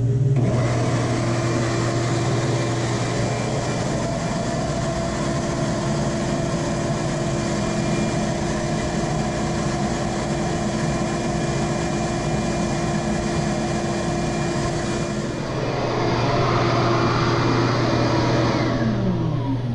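Shop vacuum switched on to pull air through a stock Ford 4.6 3V cylinder head on a homemade flow bench, running as a steady rush of air and motor noise with the valves held open 0.500 in. Near the end it is switched off and its motor whine falls away.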